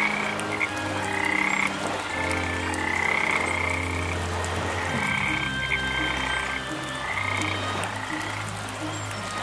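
A chorus of frogs croaking: long, low, drawn-out croaks under shorter, higher calls that repeat about once a second.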